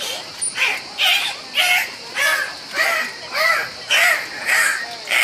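A dolphin calling in air with its head above the water: a series of harsh squawks, about two a second, each rising and falling in pitch.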